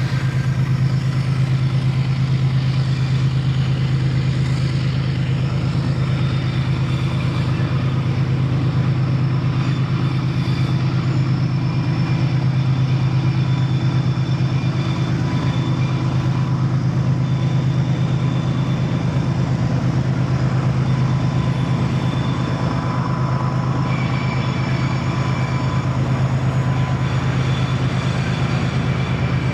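Diesel locomotive engine running with a steady, unchanging low drone.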